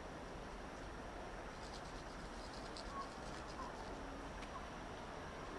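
Faint outdoor ambience: a steady hiss, with a short run of rapid, high chirping about two seconds in and a few brief chirps after it.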